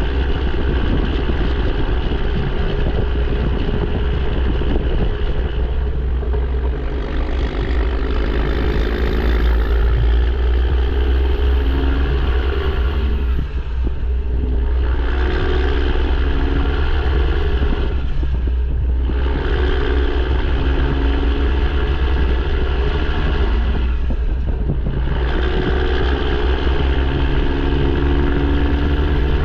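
Straight-piped PACCAR MX13 inline-six diesel with its emissions equipment fully deleted, running under load as the truck drives. The engine note dips briefly three times, about 14, 19 and 25 seconds in.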